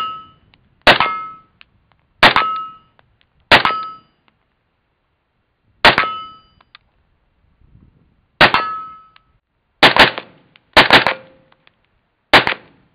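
Unsuppressed 10.3-inch short-barreled AR-style rifle firing about ten single shots, unevenly spaced a second or two apart and coming quicker near the end. Each shot is sharp and loud, with a brief ringing tone trailing most of them.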